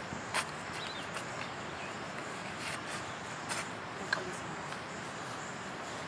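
Quiet background ambience: a steady hiss with a few scattered sharp clicks.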